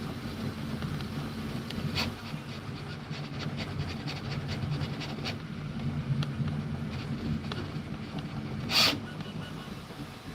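3D printer running: a steady hum of fans and motors with scattered light ticks, and one sharp click near the end.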